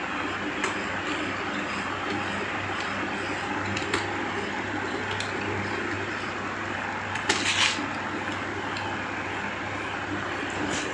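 Electric box fan running: a steady rush of air over a low motor hum, with a few faint clicks and a brief rustle about seven seconds in.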